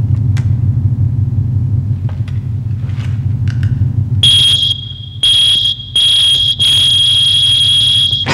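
Electronic science-fiction sound effects: a low pulsing drone with a few faint clicks, then about four seconds in a high, piercing steady electronic tone that breaks off three times briefly and runs on until music begins.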